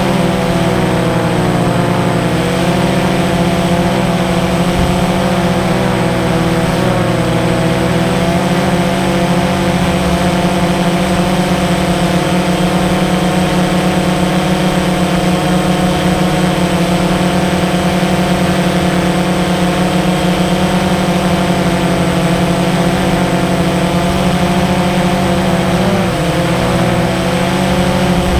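Camera drone's motors and propellers humming loudly and steadily, heard from the drone's own onboard camera, with the pitch dipping briefly three times as the motors change speed.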